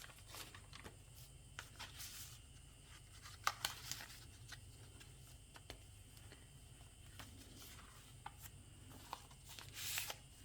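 Faint paper rustling and light taps as the pages of a handmade paper junk journal are turned and handled. There is a sharper crinkle about three and a half seconds in and a brief swish of a page near the end.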